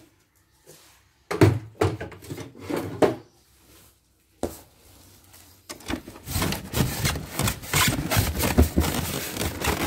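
Cardboard box and styrofoam packing being handled: a few knocks and scrapes, then a few seconds later a continuous run of rubbing and scraping as the packed embroidery machine is shifted inside the box.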